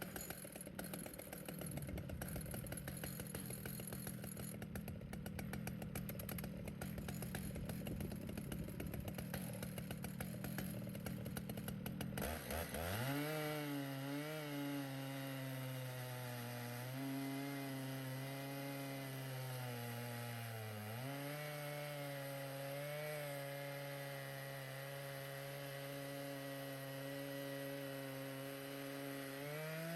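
Stihl MS 881 two-stroke chainsaw running a chainsaw mill through a big-leaf maple log. It is a rough, uneven rumble at first; about twelve seconds in, the engine climbs to a steady high note under load in the cut. The note sags briefly about two-thirds of the way through and then picks back up.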